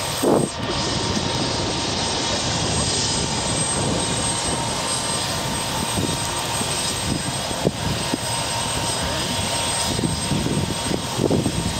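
Light turbine helicopter running on the ground, its engine and rotor making a steady loud noise with a thin high whine. A brief thump comes just after the start.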